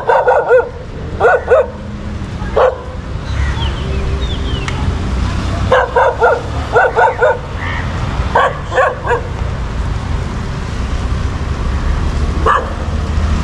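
A dog barking in short quick runs, several times over, with a single bark near the end, over a steady low rumble.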